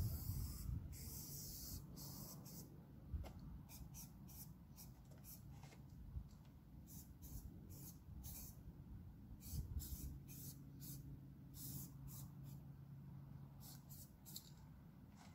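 Aerosol spray-paint cans hissing in many short bursts in quick succession, some held for about half a second, as letters are painted.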